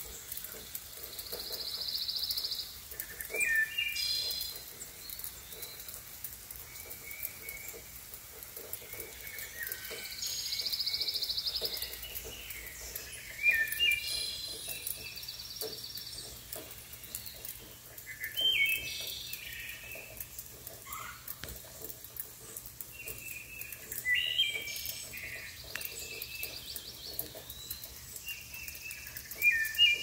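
Songbirds singing in woodland: many short whistled and chirped phrases repeated throughout. Twice a long, buzzy, high trill runs for a couple of seconds.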